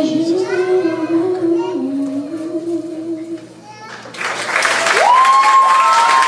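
A solo voice sings the last held notes of a song without accompaniment. About four seconds in, the audience breaks into applause, and one person lets out a long, high cheer over it.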